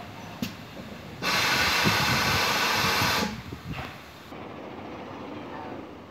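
Steam locomotive, GWR Large Prairie tank engine 4144, letting off a loud blast of hissing steam while running slowly. The hiss starts abruptly, lasts about two seconds and stops abruptly, over a low rumble of the engine moving.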